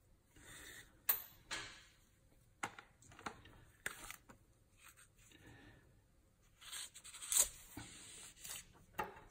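Hoppe's BoreSnake being pulled through a Glock pistol barrel: rough rubbing and scraping of the cord in the bore, with several sharp clicks and knocks of handling. The longest rubbing comes near the end.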